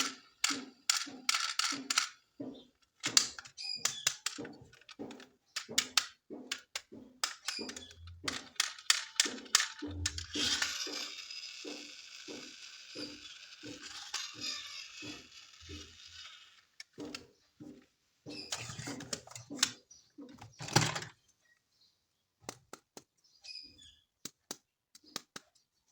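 Hard plastic toys and packaging being handled: a dense run of clicks and taps, a few dull thumps, and a steady hissing rustle lasting about six seconds midway through. The clicks thin out near the end.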